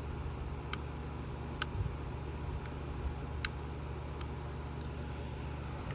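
Sharp single clicks about once a second over a steady low hum, the clicks growing fainter toward the end.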